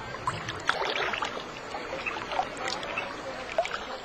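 Water sloshing and splashing, with many small irregular splashes and drips.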